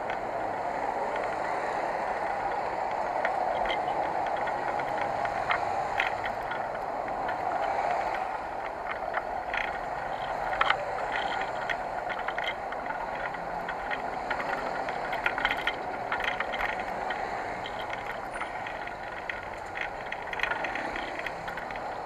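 Bicycle being ridden: a steady rushing of wind and tyres, with the bike's parts rattling and clattering in scattered bursts over bumps through the middle.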